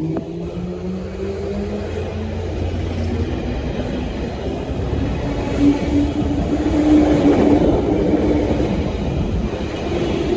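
Electric train running through the station: a steady rumble with motor hum tones that shift in pitch and then hold steady, growing louder about two thirds of the way in.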